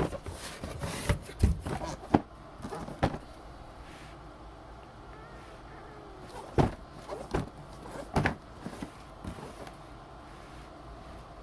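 Irregular knocks and handling noises: a cluster of sharp knocks in the first three seconds, then a quieter stretch, then a few more knocks from about six to eight seconds in.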